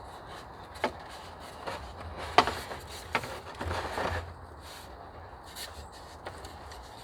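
Wooden sticks and branches knocking and rustling as they are handled. There are a few sharp knocks, the loudest about two and a half seconds in, and a short spell of scraping just after.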